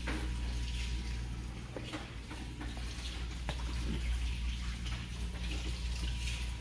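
Royal Vendors RVV 500 vending machine running: a steady low hum with an airy hiss over it and a few faint clicks.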